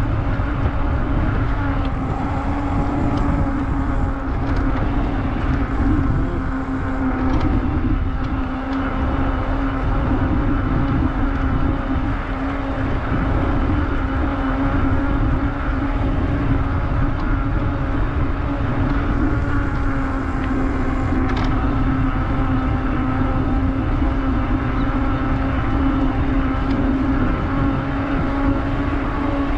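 Mountain bike rolling at a steady pace on asphalt: wind rumble on the camera microphone over a steady hum from the knobby tyres.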